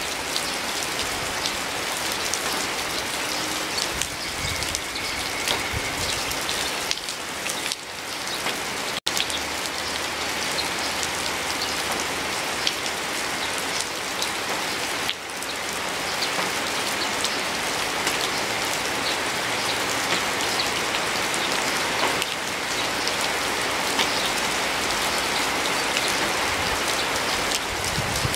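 Steady rain: a dense, even patter of drops with scattered individual ticks. The sound breaks off for an instant about nine seconds in, then carries on unchanged.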